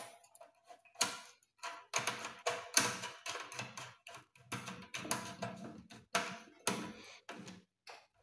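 Screwdriver turning the terminal screw on a main breaker, tightening a wire in place: a run of irregular clicks and short scrapes of the blade in the screw head.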